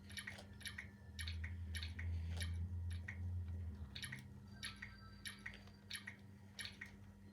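Sony Aibo ERS-1000 robot dog playing its lapping sound at its water bowl: soft, quick licking clicks about two or three a second. A low hum from its motors sits under them for a few seconds, starting about a second in.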